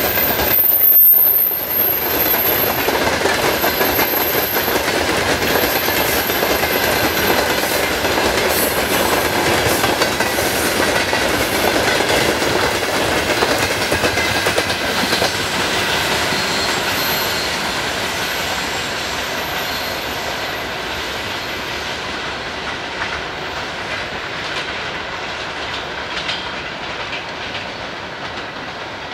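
A freight train's wagons, covered hoppers and open gondolas, rolling past with wheels clacking over the rail joints. The sound fades steadily in the second half as the end of the train moves away.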